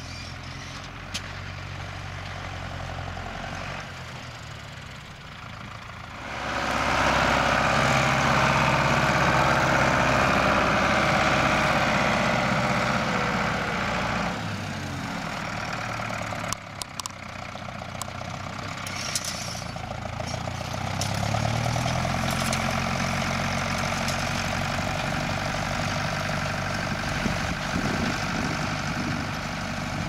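Fendt tractor running steadily as it pulls a PTO-driven rotary hay rake through cut hay. The sound swells loudly about six seconds in and stays up for several seconds, drops back, then rises again with the engine pitch climbing about twenty seconds in.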